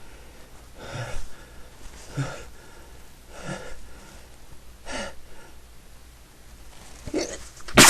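A man's quick breaths in, several of them about a second and a half apart, as a sneeze builds; the sneeze bursts out loudly at the very end.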